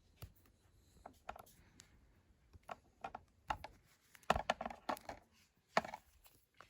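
Packaging being handled during an unboxing: scattered clicks and knocks of box contents being moved and taken out, with a cluster of louder knocks a little past the middle and another single knock near the end.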